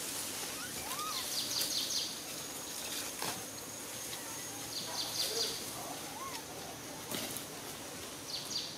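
Outdoor ambience of bird chirps in short bursts every few seconds over a steady high insect whine, with a few faint rising-and-falling calls and a couple of sharp clicks.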